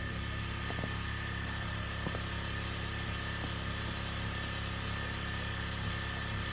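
A steady low mechanical hum with a thin, high, even whine above it and a few light clicks.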